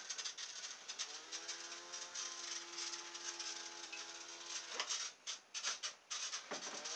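Small electric motor and propeller of a radio-control fan boat: a whine with a hiss of air that winds up about a second in and holds steady. It cuts off near five seconds with a few clicks, then winds up again near the end. The builder thinks the batteries are running down.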